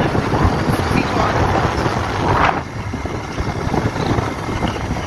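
Wind buffeting the microphone of a moving vehicle, with road noise underneath. A brief louder rush comes about halfway through, and it is a little quieter after that.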